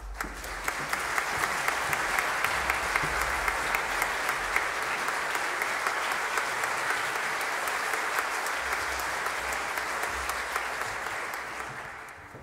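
Concert audience applauding, swelling up within the first second, holding steady and fading away near the end.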